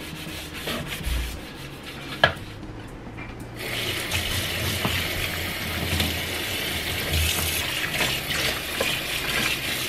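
Round wooden-handled bristle dish brush scrubbing a soapy stainless steel sink, with a sharp knock about two seconds in. About three and a half seconds in, the tap comes on and water runs steadily over the brush and into the sink.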